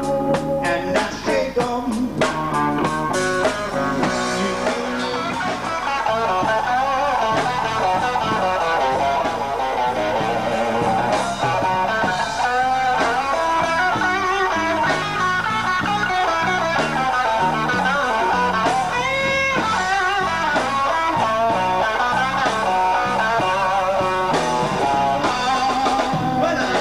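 Live blues-rock band: electric guitar lead over bass and drums, with a few held notes bent and wavered.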